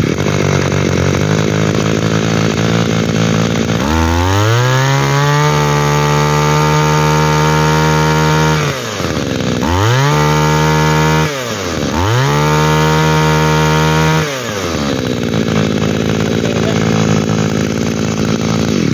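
Robin NB232 two-stroke brush cutter engine idling, then revved up three times: one long high rev held for about five seconds and two shorter ones, each dropping away between. It then settles back to idle.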